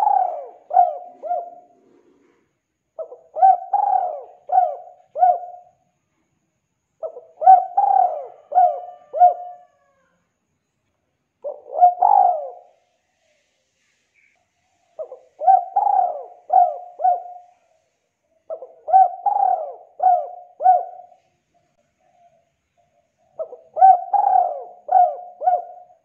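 Spotted dove cooing in its repeated song: phrases of three or four quick coos, about one phrase every four seconds, seven times, with one shorter phrase midway.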